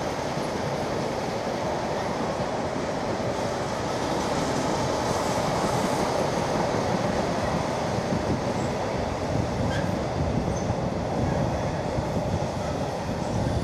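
Freight trains rolling past: a steady noise of wagon wheels running on the rails, getting a little louder about four seconds in.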